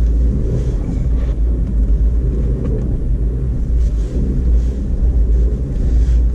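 2012 Audi A4 quattro running under load while trying to drive out of deep snow: a steady low rumble from the engine and drivetrain.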